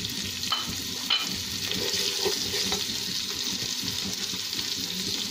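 Corn kernels sizzling in hot oil in a pan as a spatula stirs them, with two short sharp clicks about a second in.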